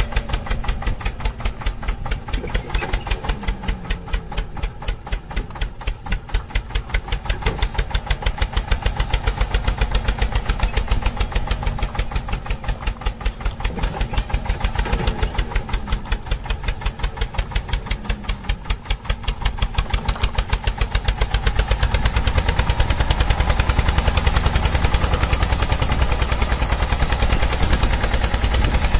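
Engine running at idle, a rapid even chugging that holds steady throughout and grows louder about two-thirds of the way through. It is an added engine sound, since the toy tractor on screen has no motor.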